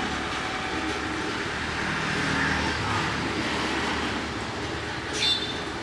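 Steady mechanical rumble of passing vehicle traffic, with a brief high-pitched squeak about five seconds in.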